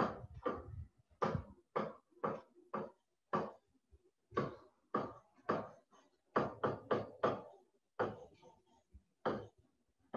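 Stylus or pen strokes on a writing tablet during handwriting: a run of short taps and scrapes, about two a second.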